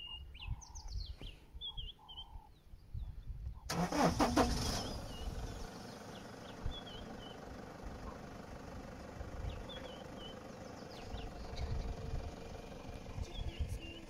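Birds chirping, with a sudden loud burst about four seconds in. After the burst a vehicle engine runs steadily under the birdsong.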